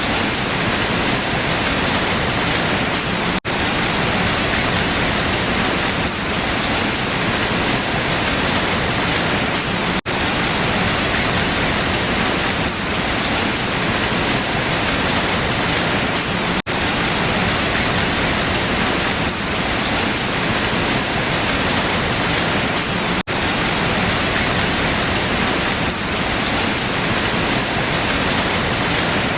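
Steady, dense rain falling on leaves, with very short gaps about every six and a half seconds.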